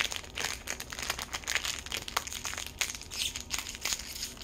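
A small plastic baggie crinkling and crackling in quick, irregular crackles as it is handled and pulled open by hand.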